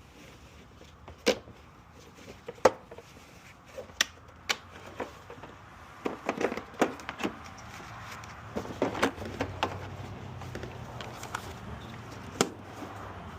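Irregular sharp clicks and knocks, single ones spaced out at first, then bunched in quick clusters about six and nine seconds in, with a faint steady low hum starting about eight seconds in.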